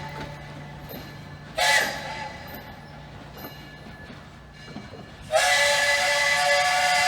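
Steam locomotive whistle blowing a short blast about a second and a half in, then a long blast near the end. Several tones sound together in each blast.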